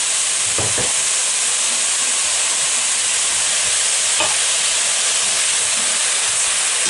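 Steady sizzling in a stainless steel stewpot as chopped tomato is stirred in with browned beef, onion and carrots, its juice deglazing the browned bottom of the pot. A metal slotted spoon knocks or scrapes against the pot a couple of times, about a second in and again past the middle.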